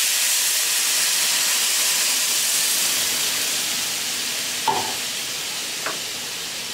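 Milk being poured into a hot frying pan of ghee-roasted semolina, sizzling and hissing with steam; the hiss slowly dies down as the milk settles. Two short knocks come near the end.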